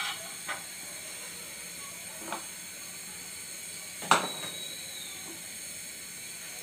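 Steady hiss from a karahi of hot frying oil over a gas burner, with a faint sizzle from a few leftover fried bits. A few sharp utensil clicks break in; the loudest comes about four seconds in.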